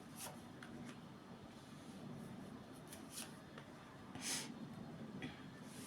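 Faint rustling and handling noises in a small room, with a few short soft hisses, the clearest a little after four seconds in.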